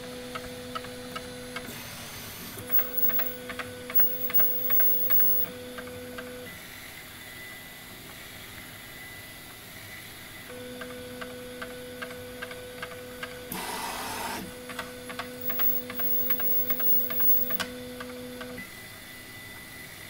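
Prusa i3 3D printer's stepper motors whining with a steady tone in stretches during its bed auto-leveling routine, with a regular ticking of about two or three clicks a second. The motors pause twice, and a brief louder rush of motor noise comes about two-thirds of the way through as an axis travels.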